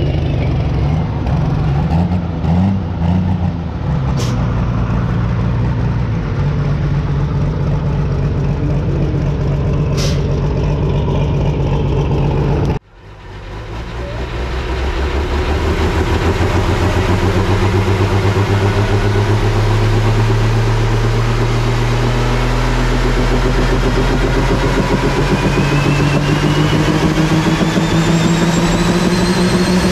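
Pro stock pulling tractor's diesel engine running hard under load while it pulls the sled. It cuts off abruptly about 13 seconds in and is replaced by the tractor's engine running steadily, its pitch slowly climbing with a high whine rising over it in the last several seconds.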